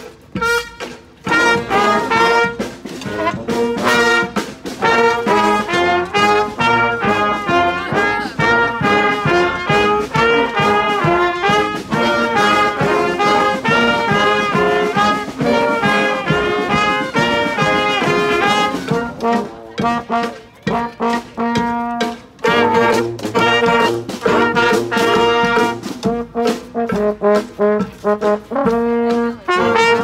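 Street brass band led by several trombones playing a tune together, with a steady beat of sharp hits under the horns.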